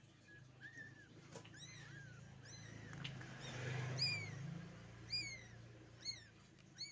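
Newborn kittens mewing: a string of short, high-pitched cries, each rising and falling, about eight in a row, over a low hum.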